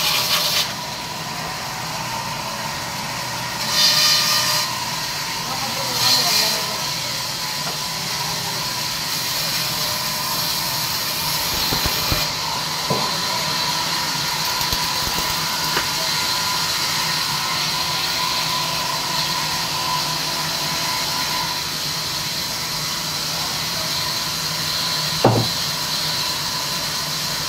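Large sawmill band saw running and cutting lengthwise through a log, a steady hiss of the blade in the wood over a steady whine. It grows louder twice, about four and six seconds in, and there is a sharp knock near the end.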